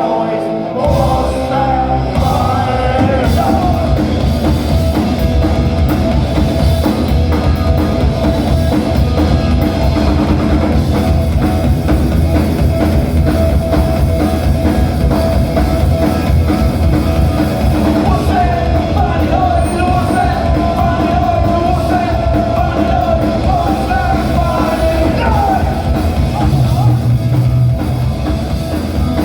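Punk rock band playing live and loud, with drums, guitars and sung vocals.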